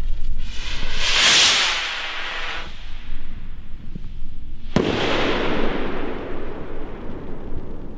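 Zink 905 firework rocket (75 g of powder) fizzing with sparks at ignition, then lifting off with a loud whooshing hiss about a second in that fades as it climbs. Near five seconds its shell bursts with a single sharp bang, followed by a long echoing rumble.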